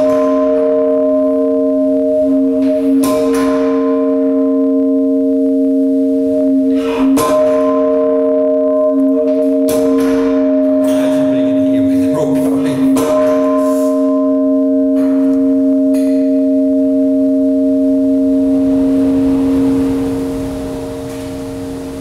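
Bronze church bells swung full circle on their wheels, heard close up in the bell chamber: a loud, sustained ringing of several steady bell tones, broken by a sharp clank every three seconds or so, easing off near the end.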